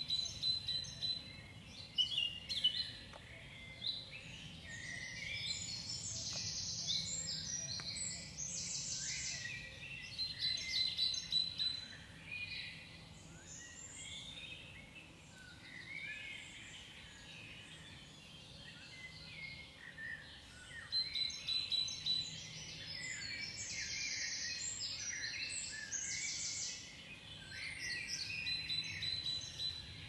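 Several songbirds singing and chirping at once, with high rapid song phrases that swell about a fifth of the way in and again past two-thirds, over a faint low background rumble.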